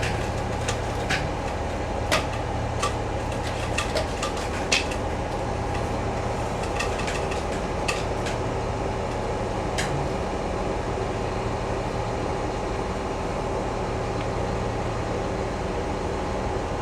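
Crawler crane's diesel engine running steadily as a lift begins, with a scatter of sharp metallic clicks and knocks in the first ten seconds.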